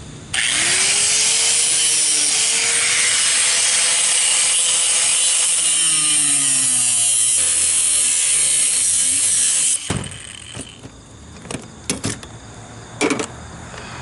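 Cordless angle grinder with a cutting wheel spinning up with a rising whine, then cutting for about nine seconds before stopping abruptly. A few sharp knocks follow near the end.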